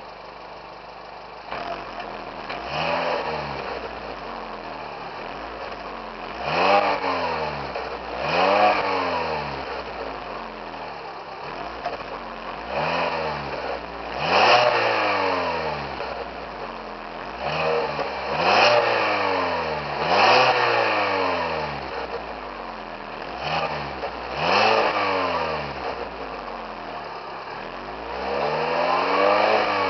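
2012 Fiat 500 Pop's 1.4-litre four-cylinder engine heard at the exhaust tailpipe. It idles at first, then is revved in about ten short blips that rise and fall back to idle.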